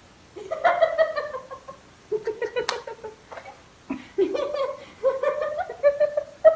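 A woman laughing in several high-pitched bursts, with a single sharp click about two and a half seconds in.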